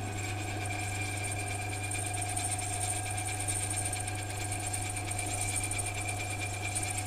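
Sealey SM27 metal lathe running steadily while an aluminium ring is bored out on it: a constant low motor hum with higher steady whines that do not change.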